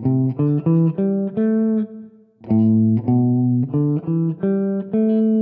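Electric guitar in a clean tone playing two slow rising runs of single notes, six notes each, the top note of the second run held. It is the A minor pentatonic scale from A, then the E minor pentatonic played from A, which swaps the minor third (C) for the ninth (B).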